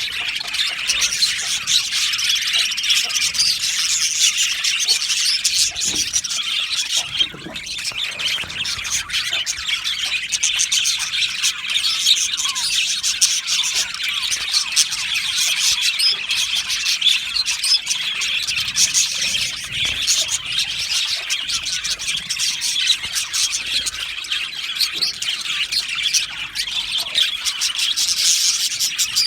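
A flock of budgerigars chattering and chirping together in a continuous, dense stream of warbles and squeaks.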